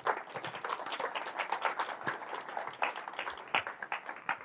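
Audience applauding: many hands clapping in a dense patter that thins out near the end.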